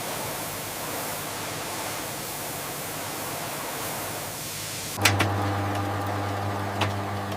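A steady rushing hiss, then an abrupt change about five seconds in to steady factory machinery humming, with a few sharp clanks as it starts and another near the end.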